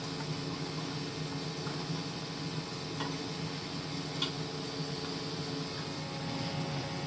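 A steady machine hum, with a couple of faint ticks about three and four seconds in.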